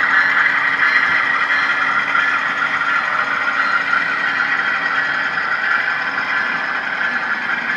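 Model train rolling past: a diesel locomotive and its cars running on the track with a steady mechanical running sound. A low engine hum from the locomotive fades out about five seconds in as it moves away.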